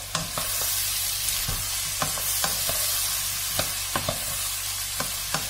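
Diced vegetables sizzling steadily as they fry in a non-stick pan. They are stirred with a wooden spatula that gives about ten irregular light knocks and scrapes against the pan.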